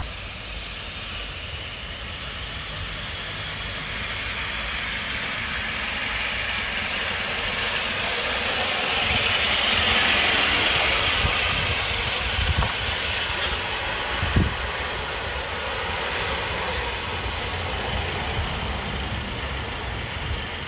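3.5 inch gauge live steam B2 locomotive running past on elevated track. Its running noise grows louder to a peak near the middle and then eases off, with a few sharp clicks.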